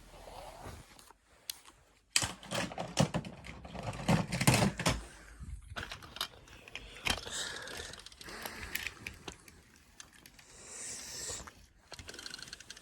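Small toy cars being handled and moved by hand: a run of rapid plastic clicks and clatter, loudest from about two to five seconds in, then lighter clicking and rustling.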